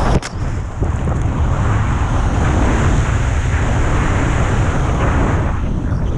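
Loud, steady wind rushing and buffeting the microphone, with a few short knocks right at the start.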